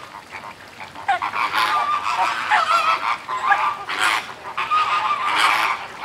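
A large flock of flamingos calling, many nasal honking calls overlapping, with swells of splashing and wing-flapping as birds run across the water to take off.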